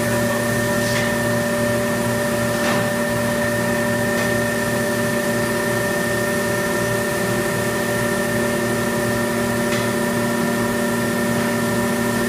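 Industrial thermoforming machine running: a steady mechanical hum with several constant whining tones, and a couple of faint clicks.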